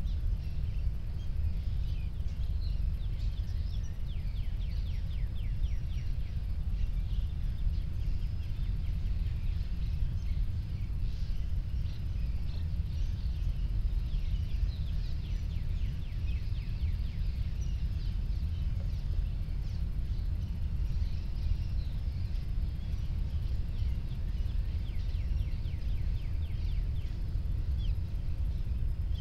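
Outdoor ambience: a steady low rumble with many quick, high chirps scattered throughout.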